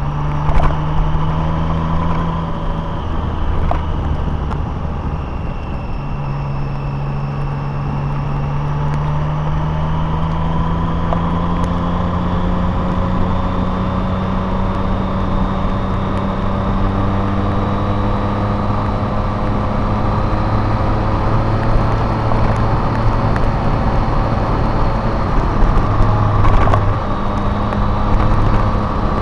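Car engine running steadily with road noise while driving. The engine note breaks off a few seconds in, returns and then climbs slowly in pitch over about ten seconds.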